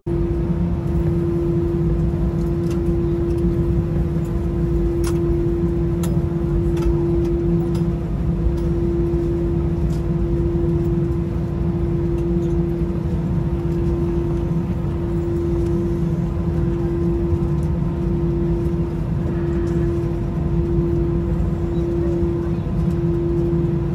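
Cabin noise of an Airbus A320-200 taxiing after landing: the engines at idle give a steady hum over a low rumble.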